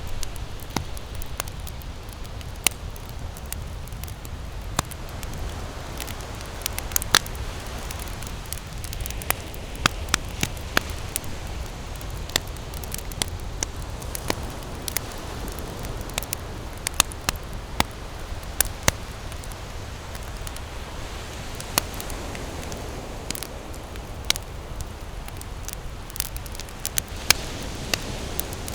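Wood campfire crackling, with frequent sharp, irregular pops and snaps over a steady low rumble.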